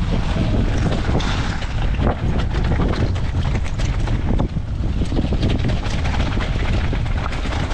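Mountain bike descending a rough slate trail in strong wind: gusts buffet the microphone in a steady low rumble, over a constant clatter and knocking of the bike on rocks.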